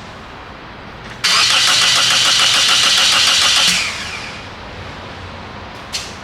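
2003 Toyota Corolla's 1.8 litre four-cylinder engine cranking on the starter with an even rhythm for about two and a half seconds without catching, because there is no spark. A sharp click near the end.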